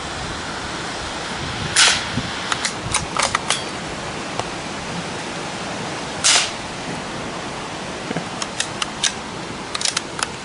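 Two fairly soft shots from a Marlin XT-22 bolt-action .22 LR rifle firing CCI Quiet subsonic rounds, about four and a half seconds apart. After each shot comes a quick run of sharp metallic clicks as the bolt is worked. Steady wind hiss underneath.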